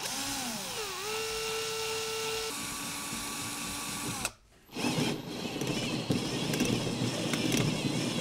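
Cordless drill driving a hole saw into a car door panel. The motor whine dips in pitch about a second in and then holds. It stops briefly just after four seconds in, then starts again as a rougher grinding cut.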